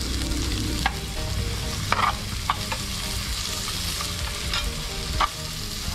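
Garlic and sliced red onion sizzling in hot oil in a small frying pan as they are sautéed, with a spoon clinking against the pan a few times while stirring.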